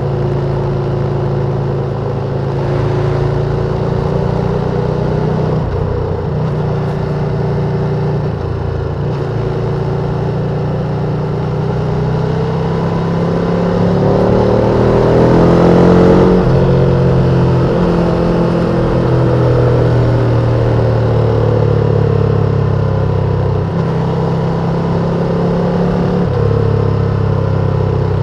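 Ducati Panigale V2's twin-cylinder engine on its stock exhaust, heard from the rider's position while riding, over the rush of wind and road. The revs climb gradually to a peak about sixteen seconds in, then drop back and settle to a steady cruise.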